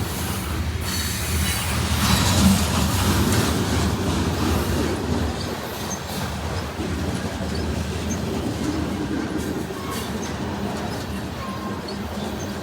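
Freight train rolling past close by: a steady rumble of diesel engine hum and rolling cars on the rails. It is loudest about two and a half seconds in and eases off slowly after that.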